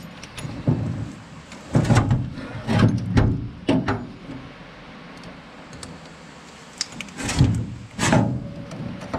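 Irregular clunks and scrapes of metal parts being worked by hand on the finger-wheel shaft of a New Idea 323 corn picker's husking bed. They come in short clusters, with a quiet stretch in the middle.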